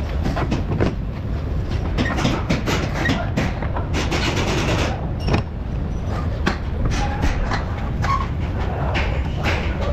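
Irregular knocks, clicks and scrapes of a new CV axle being handled and fed into the wheel hub, metal and rubber boot against the suspension parts, over a steady low rumble.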